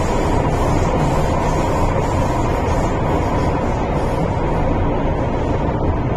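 MTR M-Train electric metro car running through a tunnel, heard from inside the passenger car: a steady rumble of wheels and running gear. A hiss on top of it dies away about two-thirds of the way through.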